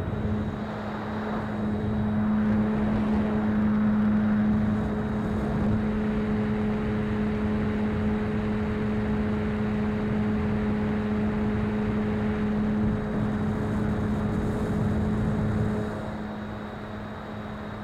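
Electric motor and propeller of a radio-controlled foam model plane running steadily in flight with a constant-pitched hum, over wind rush on the plane's onboard camera. The hum eases off and gets quieter near the end, as the throttle comes back.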